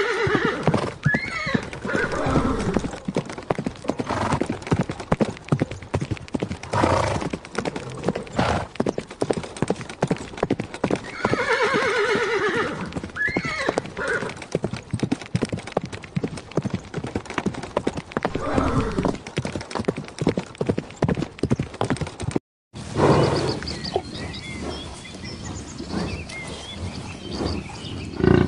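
Horses whinnying several times, long wavering calls that fall in pitch, over rapid hoofbeats. A brief dropout comes near the end, and after it a quieter, different sound follows.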